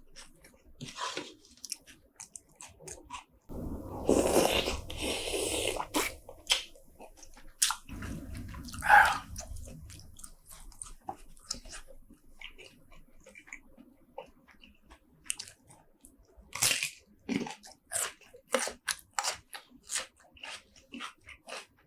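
Close-miked eating of spicy seafood: chewing and crunching with many short wet mouth clicks, and two longer, louder stretches of eating noise about four and eight seconds in.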